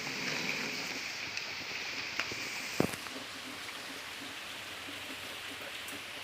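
Steady rain falling, a continuous hiss, with a few light clicks and one sharp click nearly three seconds in.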